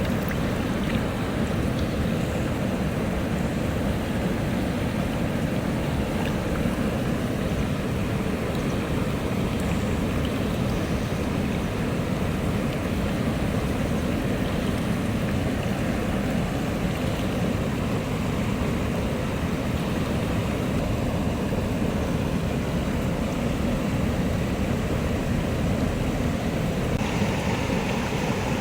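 Steady rushing of a mountain stream's flowing water, an even noise with no breaks.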